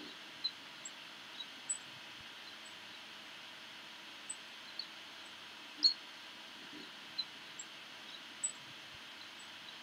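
Quiet outdoor ambience: short, high chirps of small birds scattered about once a second over a faint steady hiss.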